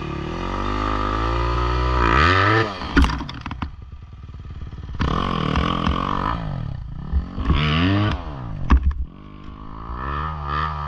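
Dirt bike engines revving in about four bursts, the pitch sweeping up and dropping back each time, as a rear wheel spins to claw up a muddy, snowy slope. A few sharp knocks sound between the revs.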